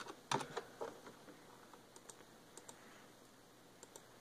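Faint computer keyboard typing: a quick cluster of key clicks about half a second in, then a few scattered single keystrokes.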